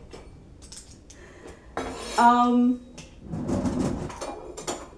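Dishes and cutlery clinking and clattering as a dishwasher is unloaded and things are put away, with a few sharp clicks and knocks and a longer clatter in the second half.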